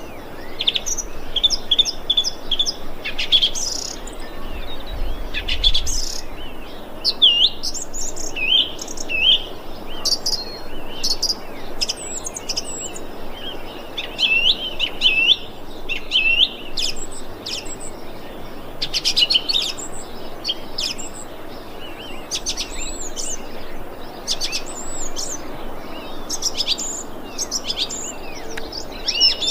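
A thrush singing: a continuous run of short, varied whistled phrases, some notes repeated several times in quick succession.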